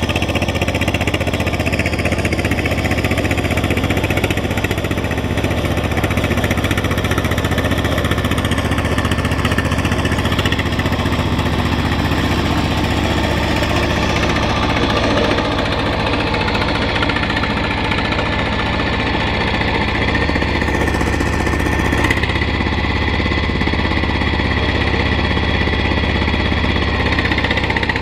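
Single-cylinder diesel engine of a cage-wheeled paddy-field tractor running steadily under load as it ploughs through wet rice-field mud.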